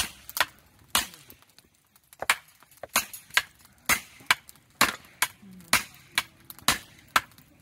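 Hammer striking the spine of a knife blade set into a block of firewood (batoning), splitting it for kindling: sharp metal-on-metal strikes with a clink, about two a second with a short pause near two seconds in.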